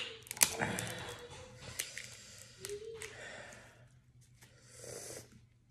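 Close-miked eating sounds: wet smacks, chewing and the squelch of plastic-gloved hands pulling apart sauce-coated seafood. Sharp smacks are loudest in the first half second, and softer clicks follow.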